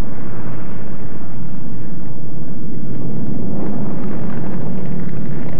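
P-51 Mustang fighter's piston engine running at low power as the plane lands and rolls along the runway, a steady rough rumble on an old, noisy film soundtrack.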